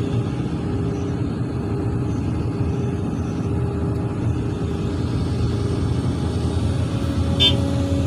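Heavy diesel engine of an excavator running steadily under load while it swings and empties a bucket of soil into a dump truck. A brief sharp high-pitched sound comes about seven seconds in.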